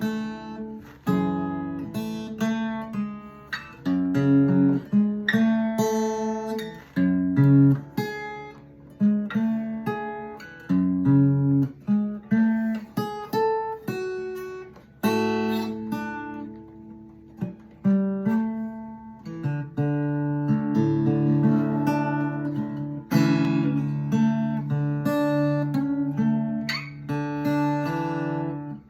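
Ovation Koa acoustic guitar in DADEAD open tuning, fingerpicked: sharply plucked melody notes and chords ringing over low droning bass strings, with a few hard strummed accents.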